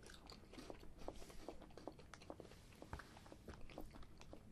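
Faint chewing of a cookies-and-cream cookie snack: many small, irregular crunches from two people eating.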